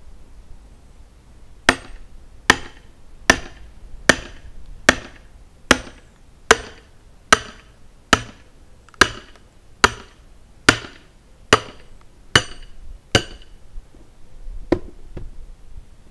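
Medium-sized hammer striking a large steel chisel driven into the top of a larch log: about fifteen steady, ringing blows a little under a second apart, then a few lighter knocks near the end. The chisel is being knocked down the grain to split the centre out of the log.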